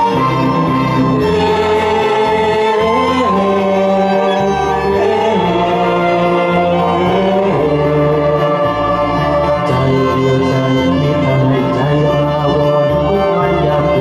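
A man and a woman singing a Thai pop song as a duet over an orchestral karaoke backing track, with a live violin playing along.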